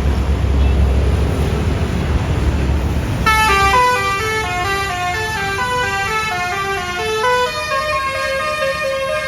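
A low rumble, then about three seconds in a Basuri telolet musical bus horn starts playing a tune of quick stepping notes, moving to longer held notes near the end.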